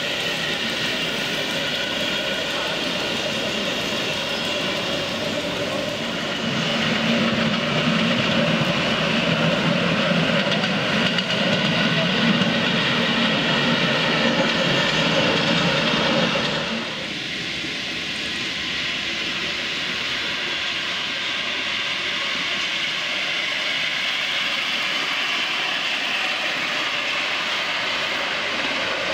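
Ride-on miniature railway train running past on its track, a steady mechanical running sound with wheels on rail. It grows louder about six seconds in as a train passes close, then drops away abruptly just past halfway and carries on quieter.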